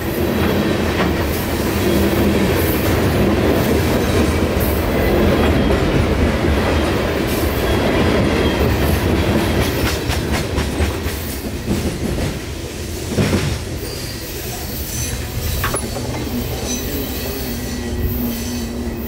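CSX mixed freight train rolling past at close range, its wheels clattering steadily over the rails, with a louder clank about 13 seconds in.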